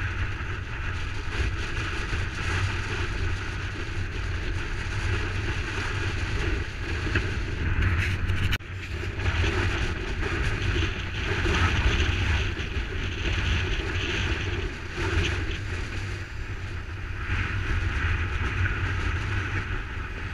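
Strong wind buffeting the microphone, a steady low rumble that rises and falls in gusts, over small waves washing onto the shore.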